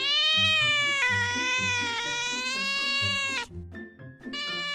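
A cat giving one long, drawn-out meow lasting about three and a half seconds, its pitch wavering slightly, with another meow beginning near the end. Background music with a steady beat runs underneath.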